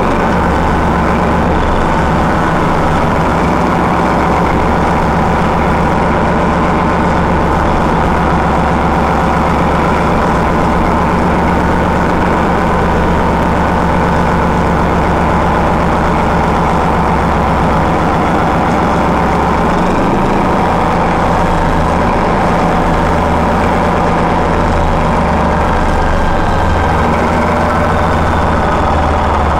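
Paxman 6YJXL diesel engine of a Class 14 diesel-hydraulic locomotive running steadily, a freshly installed replacement power unit just after its first start-up. Its low drone shifts slightly about two-thirds of the way through.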